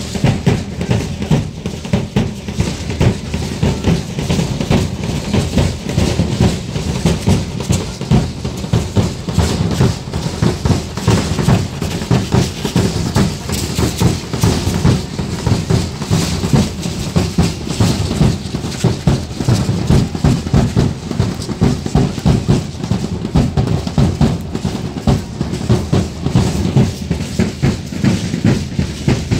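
Drumming for a Mexican danza apache troupe: a steady, driving drum beat that keeps going without a break.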